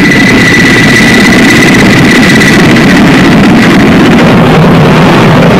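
Aircraft turbine engines running, loud and steady, with a high steady whine that fades out about halfway through.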